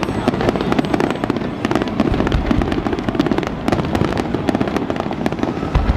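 Aerial fireworks display: shells bursting in quick succession with a dense crackle of many small pops, and a heavier boom just before the end.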